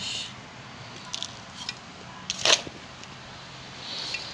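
Potting substrate being added by hand to a small clay cup: soft rustling and light clicks, with one sharper knock about two and a half seconds in.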